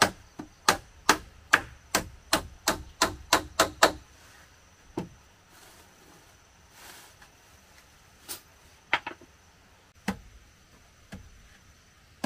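Wood struck repeatedly with a hand tool in a fast, even series of sharp blows, about three a second. The blows stop about four seconds in, and a few single knocks follow.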